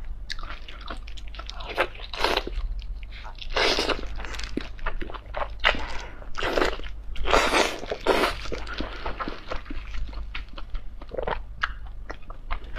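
Close-miked eating sounds: biting and chewing lamb intestines, a steady run of short mouth clicks with several louder bites in the middle.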